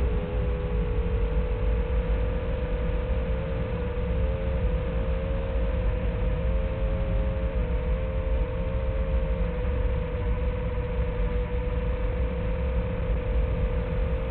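Small FPV quadcopter's brushless motors running in flight, a pair of close mid-pitched tones wavering up and down with throttle, over a steady low rumble. The sound is muffled, with no treble.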